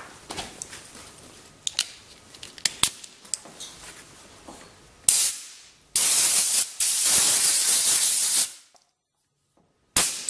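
Light clicks and handling of brass quick-connect fittings, then a pneumatic blow gun firing compressed air through the newly crimped vinyl hose at about 125 PSI: a short blast about five seconds in, then a longer hiss of about two and a half seconds with a brief break. A sharp click comes near the end.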